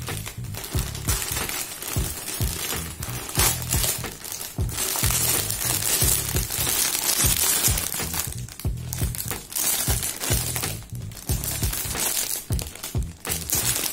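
Plastic courier mailer and clear plastic packaging crinkling and rustling as they are torn open and handled, loudest around the middle, over background music with a steady beat.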